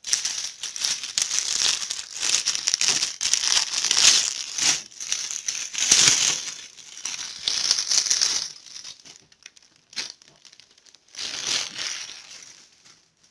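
Clear plastic wrapping being torn open and pulled off a magazine, crinkling and crackling steadily for about eight seconds, then in a few short bursts near the end as the wrap is handled and put aside.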